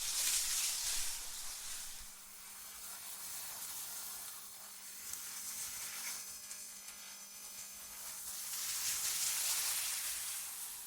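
Wind blowing in gusts: a hiss that swells near the start, dies down, and rises again near the end.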